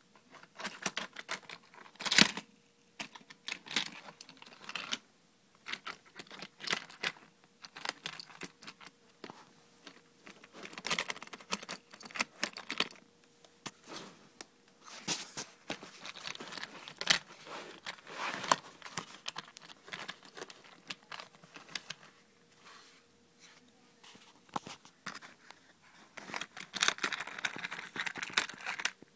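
Plastic parts of a Matchbox Auto Center pop-up playset and a toy car being handled: irregular clicks, knocks, rattles and scraping, with a sharp snap about two seconds in.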